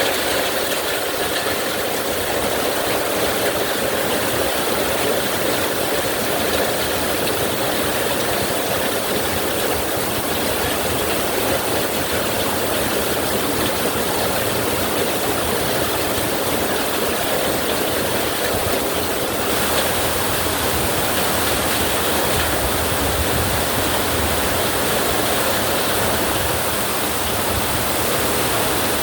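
Heavy rain falling steadily, a dense, even hiss that turns a little hissier about twenty seconds in.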